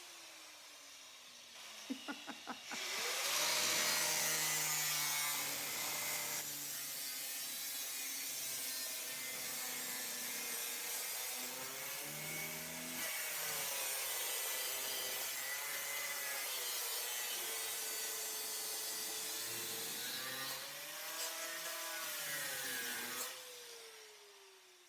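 Power tool cutting through a car body's sheet metal. Its motor pitch dips and rises as the cut loads it. It stops about 23 seconds in and the motor winds down in a falling whine.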